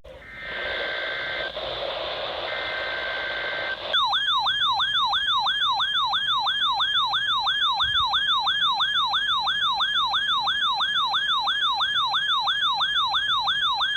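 A NOAA Weather Radio receiver going off. Two bursts of the SAME digital header data chirp over radio hiss. Then, about four seconds in, the radio's alarm starts: a loud warbling siren that rises and falls about two and a half times a second.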